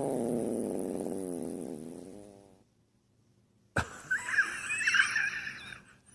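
An animal's long buzzing fart, lasting about two and a half seconds, its pitch wavering before it fades out. After a short break there is a burst of high squeaky sounds.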